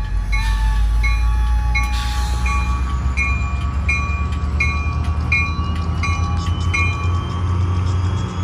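Connecticut DOT passenger train rolling slowly through the station, with a low steady rumble and a bell ringing about one and a half times a second; the bell stops near the end as a faint rising whine comes in.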